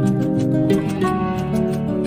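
Background music of soft, held, overlapping notes, the chord changing about every half second.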